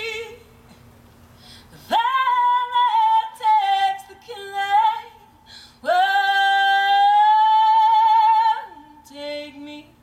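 A woman singing wordless, drawn-out phrases with vibrato. The first phrase steps through several pitches. The second is one long held note of nearly three seconds, followed by a short lower phrase near the end.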